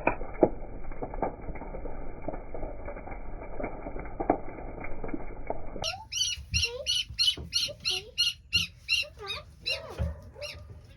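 Muffled rustling with scattered clicks. About six seconds in, an animal starts calling: a rapid run of short, high-pitched squeals, about two a second.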